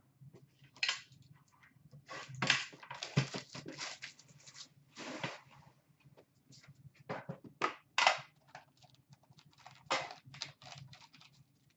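Hands handling hockey trading cards and a metal Upper Deck card tin on a glass counter: irregular clicks, taps and rustles as the cards are set down and the tin is picked up and its lid opened.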